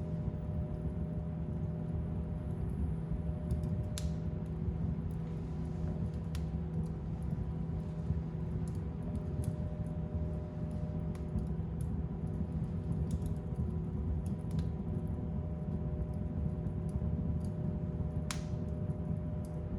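Fire burning in a fireplace: a steady low rumble of flames with scattered sharp crackles and pops, the clearest about 4 seconds in and near the end.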